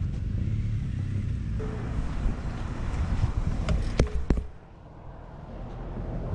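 Petrol pump nozzle and hose being handled: a few sharp clicks and clatters about four seconds in, over a steady low rumble that drops off suddenly just after.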